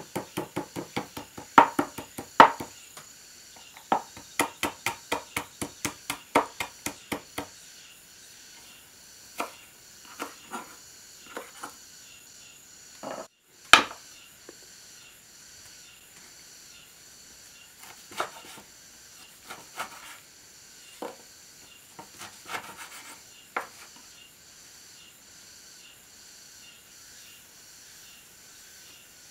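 Kitchen knife mincing garlic on a wooden cutting board: rapid knocks about four a second for the first several seconds, then scattered single knocks and one louder knock near the middle. Insects chirr steadily and faintly in the background.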